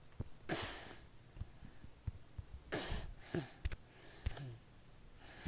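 A person's breathing or sniffing close to the microphone: two short breaths, about half a second in and again near three seconds, with a few light taps between.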